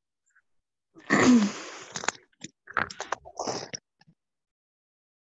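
A loud burst of breath from a person about a second in, with a short falling vocal tone, followed by a few shorter breathy sounds and clicks.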